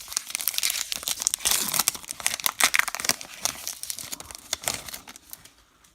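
Baseball card pack wrapper being torn open and crinkled by hand, a dense crackling that thins out near the end.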